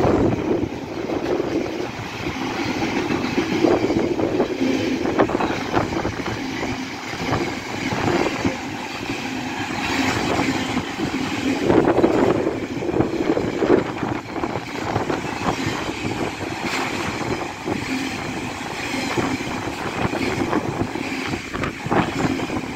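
Container wagons of a freight train rolling past close by. It is a steady rumble with repeated clicks as the wheels run over the rail joints.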